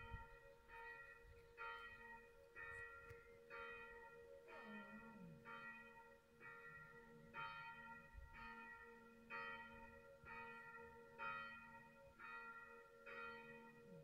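Faint church bells ringing, a strike about once a second over a steady hum of the bells. About four and a half seconds in, an Afghan hound joins in with a short falling howl.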